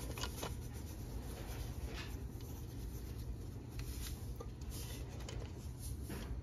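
A steady low hum with a few faint, light clicks and rubs scattered through it.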